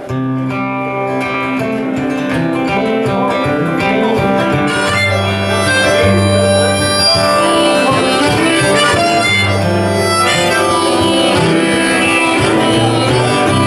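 Harmonica on a neck rack playing a melody of held notes over a strummed acoustic guitar, a solo folk instrumental intro. It comes in loudly right at the start.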